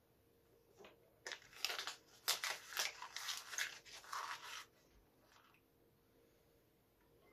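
Sheet of printed paper crinkling and tearing in the hands, a dense run of sharp crackles lasting about three seconds, then stopping.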